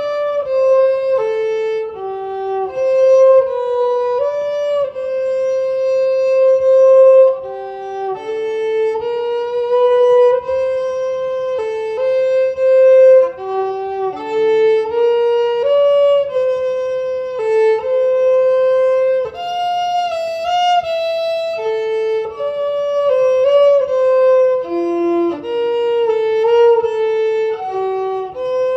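Solo violin, bowed, playing a slow melody one note at a time, with some notes held for a second or more and a few given a wavering vibrato.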